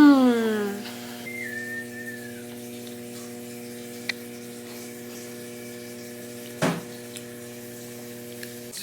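Steady electrical hum, low and even with a stack of overtones. It opens with a loud falling vocal groan, and there is a short click about four seconds in and a thump near the end.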